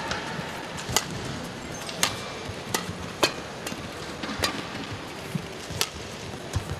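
Badminton rally: rackets striking the shuttlecock in sharp, crisp hits roughly once a second, over a faint arena hum.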